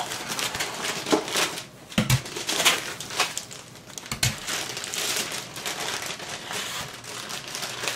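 Foam packing end caps and cardboard box rustling, scraping and crinkling as they are handled and pulled apart, with the crinkle of a plastic bag. Two dull knocks come about two and four seconds in.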